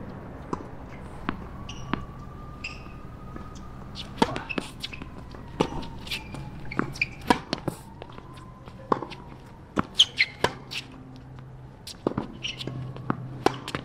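Tennis ball bouncing on a hard court and being knocked about between points: a scatter of sharp pops, often two or three close together, over a faint steady hum.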